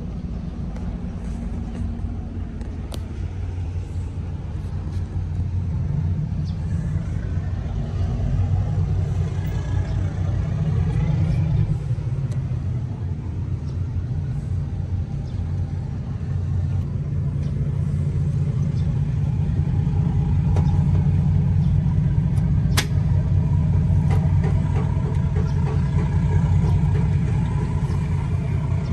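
Steady low mechanical hum, like a running motor or engine, growing a little louder partway through, with a sharp click near the end.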